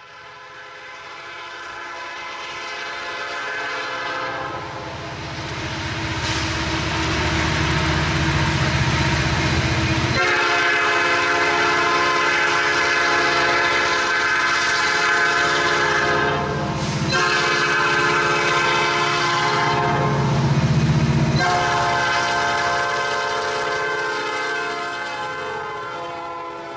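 Diesel locomotive horn sounding long blasts as the train approaches, breaking briefly twice in the second half, over a low rumble. It swells from faint to loud over the first several seconds.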